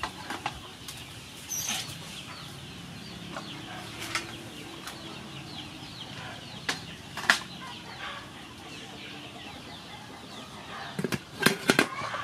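Aluminium steamer tiers knocking and clanking as they are stacked on a pot of boiling water. The loudest knock comes about seven seconds in, and a quick run of metal knocks near the end as the domed lid is set on.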